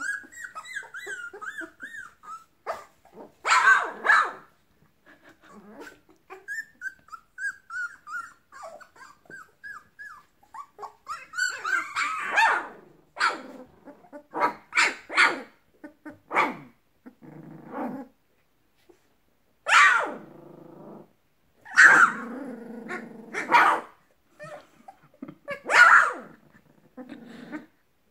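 A litter of young puppies play-fighting, with high wavering whines, low rough growls and many short yipping barks. The barks come thickest from about halfway through.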